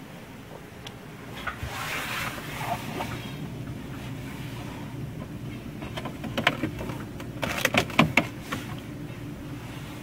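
Steady low hum of a running refrigerator. About two-thirds of the way through comes a cluster of sharp clicks and knocks as a hand handles the plastic cold-air vent cover.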